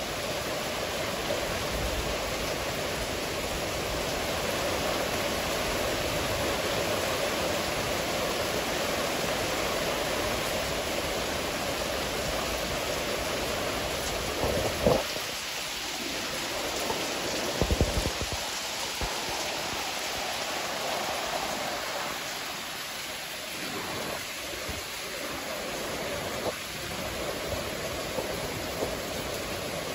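Heavy rain of a thunderstorm falling steadily, a constant hiss. A few brief knocks come about halfway through and again a few seconds later.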